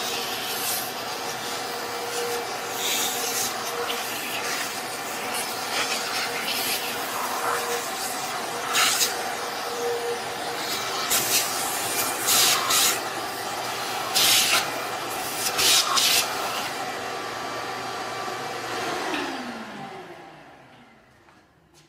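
Shop vacuum running while its hose sucks steel chips off a milling machine table, with sharp crackling rattles as bunches of chips go up the hose. Near the end the vacuum is switched off and its motor winds down with a falling whine.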